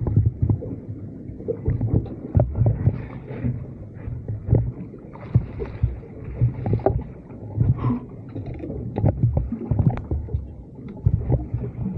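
Water slapping and sloshing against a small boat's hull, in irregular low surges, with sharp knocks scattered throughout.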